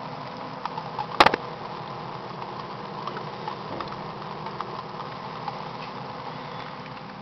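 Homemade evaporative humidifier running with a steady hum, water pattering through the drilled drainage tray onto its pad as many small ticks; one sharp click about a second in.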